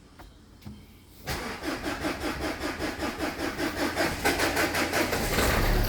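Renault Scenic 1.5 dCi diesel engine being cranked by the starter motor, with a rhythmic churn for about four seconds before it catches late near the end and settles into a low running rumble. The slow, poor start comes from a misfiring cylinder 1, which the owner puts down to a faulty injector.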